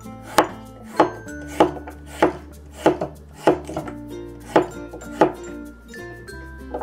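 Cleaver chopping a chayote squash on a wooden cutting board: about nine sharp chops, one every half second or so, with a pause near the end.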